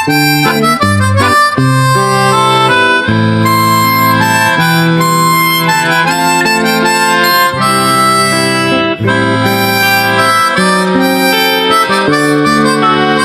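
Background music led by a harmonica playing held, sliding notes over a guitar accompaniment.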